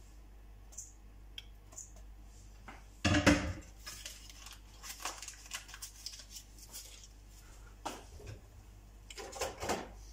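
Kitchen clatter of dishes and utensils being handled on a counter: scattered light clicks and clinks, a louder knock about three seconds in, and a run of clinks near the end.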